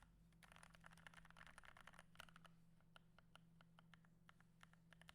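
Typing on an NK65 Watermelon mechanical keyboard, faint: a fast run of keystrokes in the first half that thins to scattered key presses later.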